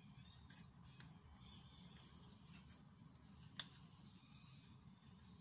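Near silence with a few faint handling clicks, and one sharper click about three and a half seconds in as a small plastic cup of cat food is brought against a stainless steel pet bowl.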